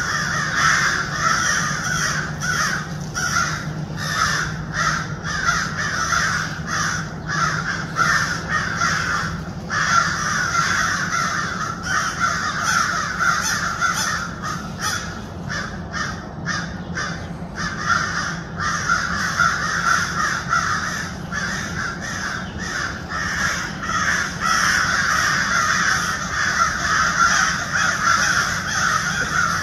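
A dense, continuous run of harsh calls, almost without pause.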